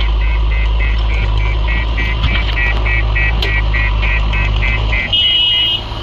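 JCB 3DX backhoe loader's diesel engine running while its reversing alarm beeps rapidly, about three beeps a second. About five seconds in the beeps change to a higher pitch, then stop.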